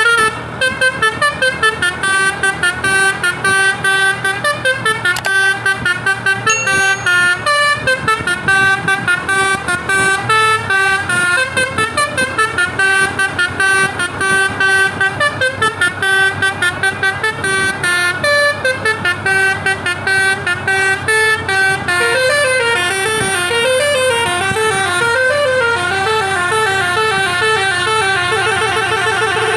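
Basuri V3 telolet bus horn with roof-mounted horn trumpets playing a fast tune of short, stepping notes. About 22 seconds in, the tune changes to a quick warbling up-and-down pattern.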